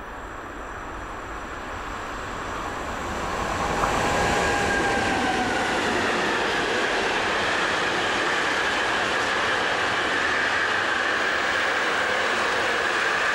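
Siemens Class 189 electric locomotive hauling an intermodal freight train past at speed. The rumble of wheels on rail grows louder over the first four seconds as it approaches. Then the wagons roll by steadily with a high whine over the rumble.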